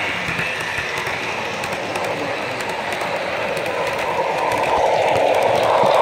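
Model trains rolling past close by on the layout's track: a steady rumble of wheels on rail with faint clicking. It grows louder over the last couple of seconds as a locomotive and freight cars pass.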